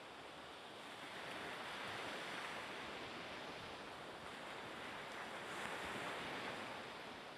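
Strong coastal wind blowing in gusts: a rushing noise that swells and eases every few seconds.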